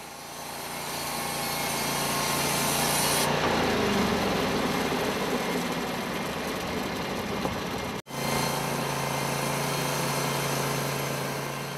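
Portable band sawmill running, its engine giving a steady hum under the hiss of the band blade sawing through a log. The sound cuts out abruptly for a split second about eight seconds in, then resumes the same.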